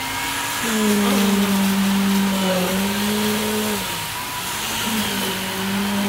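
Steady motor hum and whine of concrete-pouring machinery during a pumped concrete pour. It dips slightly in pitch just under a second in, fades about four seconds in and comes back a second later, over a constant rushing noise.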